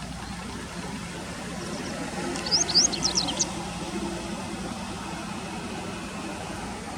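A Japanese wagtail's call: a quick run of about half a dozen high chirps, lasting about a second, over a steady low rumble.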